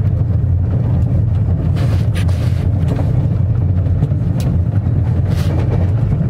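Rajdhani Express passenger coach running, a steady low rumble heard from inside the carriage, with a few faint clicks and rattles.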